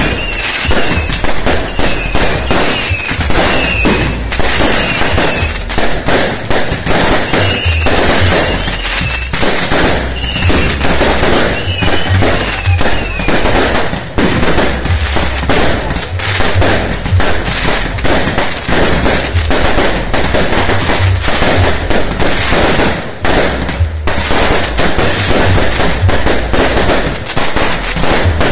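A dense, continuous barrage of firecrackers and fireworks going off, rapid overlapping bangs and crackles with no break.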